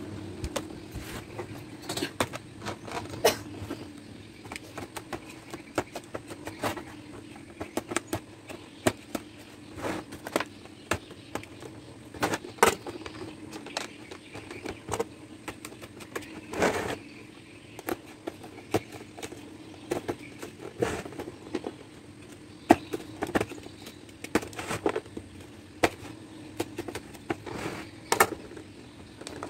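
Hands working the zipper of a soft-shell suitcase: irregular clicks, snaps and scraping as the old zipper tape is pulled and cut loose from the case's edge, over a steady low hum.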